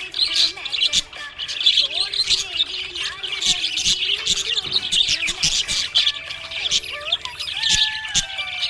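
Small pet parrots chirping in a dense, continuous high-pitched chatter of rapid overlapping chirps, with a couple of longer sliding whistles near the end.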